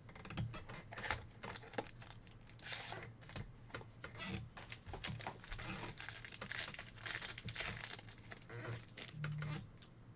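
Trading card pack wrappers crinkling and tearing as packs are ripped open and handled, in a dense run of irregular crackles.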